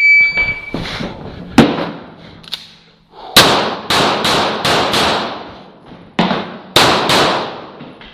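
An electronic shot-timer beep, then rapid shots from a 9 mm CZ Shadow 2 pistol in an IPSC stage. The first loud shot comes about a second and a half in, followed by quick strings of shots with short pauses between strings.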